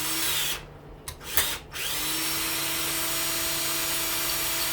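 Power drill-driver backing a long screw out of a front-load washing machine motor housing: two short trigger pulls with the motor whining up, then a steady run from about two seconds in as the screw turns out.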